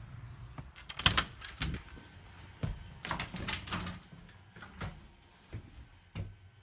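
A house door opening and shutting, with two sharp knocks about a second in as the loudest sounds, followed by scattered footsteps and knocks of someone walking indoors.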